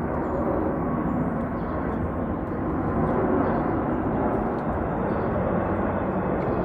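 Large jet airliner flying low overhead on approach to land: a steady engine rumble that swells slightly about three seconds in.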